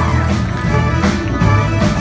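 Live pit band playing an upbeat number, with a steady drum beat about three times a second over sustained bass and keyboard chords.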